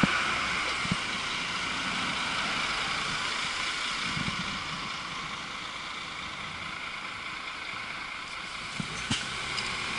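Steady rush of wind and tyre noise from riding an e-bike through town traffic, with a city bus passing close alongside. A few light knocks come about a second in and twice near the end.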